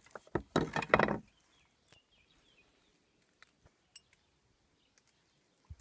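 Several sharp knocks in the first second, then quiet with a few faint bird chirps and scattered small clicks.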